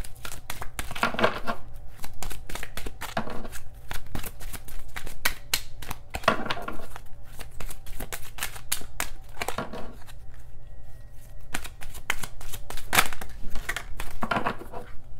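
A deck of oracle cards shuffled by hand: rapid clicking and swishing of cards, coming in spells every two or three seconds.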